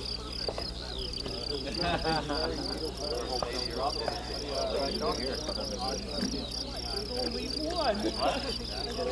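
Insects chirping steadily in grassland, a high chirp pulsing about four times a second, over a low steady hum.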